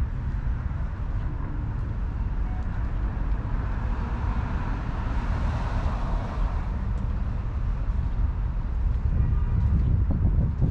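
1954 Jaguar XK120's 3.4-litre twin-cam straight-six idling steadily with a deep, even rumble.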